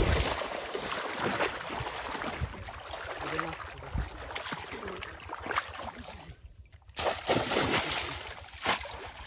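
Shallow pond water splashing and sloshing as people wade and plunge bamboo cone fish traps (polo) into it, with repeated sharp splashes. It drops away briefly about six seconds in, then a loud burst of splashing follows.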